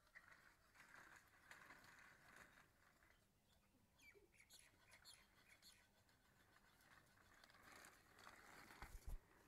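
Near silence: faint scraping and a few soft clicks, with a low bump near the end.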